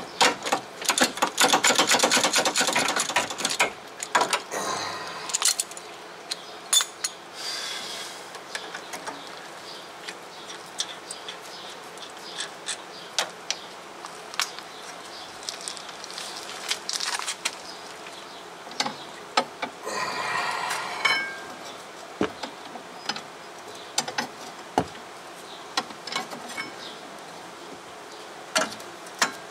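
Ratchet wrench clicking rapidly as a rear brake caliper bolt is run out. Then come scattered metallic clinks and knocks as the caliper is handled and lifted off, with another short run of rapid clicking about twenty seconds in.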